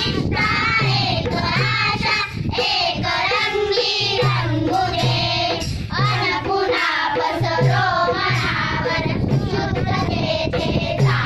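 A group of schoolchildren singing a Marathi school prayer together.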